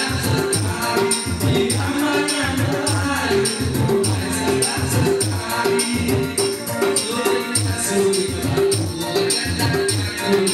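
Live band music through a PA system: electronic keyboard accompaniment with a steady, even beat, shaker-like percussion and a repeating bass line.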